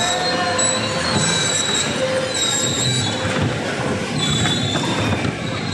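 Electric bumper cars running on the rink: a continuous rumbling noise with thin, steady high-pitched whining tones over it.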